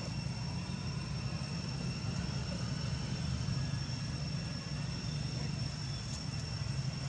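Steady low outdoor rumble with a thin, steady high-pitched whine above it.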